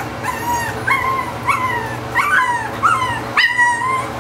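A nearly five-week-old Boston Terrier puppy crying: a run of short, high-pitched whines, each rising then falling, about two a second, the loudest near the end.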